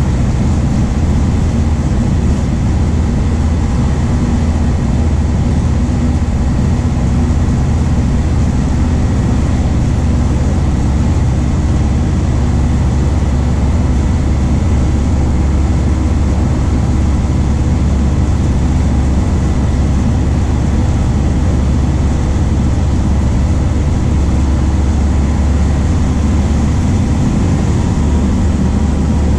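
MAN D0834 four-cylinder diesel of a VW 17.230 OD bus running loud and steady, its low engine note holding without a marked rise or fall.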